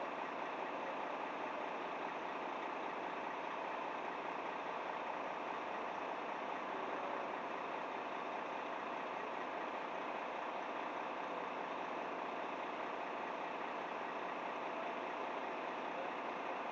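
Diesel engine of a Volvo FM high-reach fire truck idling steadily.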